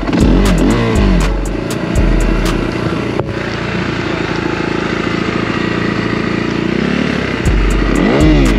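Dirt bike engine under way on a rough trail: it revs up and eases off about a second in and again near the end, and runs steadier in between.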